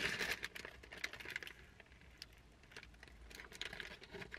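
Paper sandwich wrapper crackling and the crust of a bread roll crunching as it is bitten and chewed. It comes as a run of small, irregular clicks and rustles, busiest at the start.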